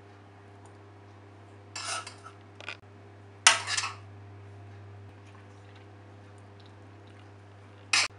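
A spoon scraping and clinking against a ceramic baking dish as paneer stuffing is spooned into a baked squash: a few short scrapes about two seconds in, a sharp clink about three and a half seconds in, and another brief one near the end.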